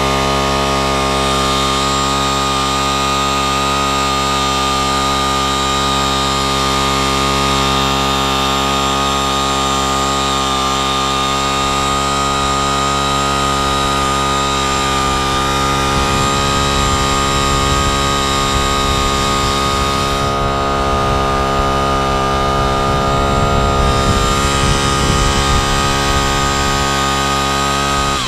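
Small petrol engine of a powered rope ascender running steadily under load, hauling a climber up the rope, at a constant pitch with a steady high whine over it.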